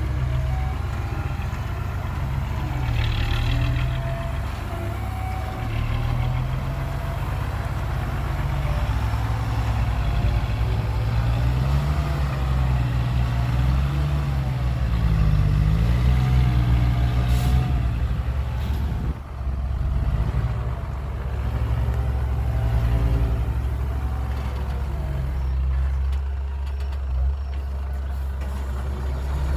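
Heavy truck or earth-moving machine's diesel engine running, its pitch rising and falling repeatedly as it is revved.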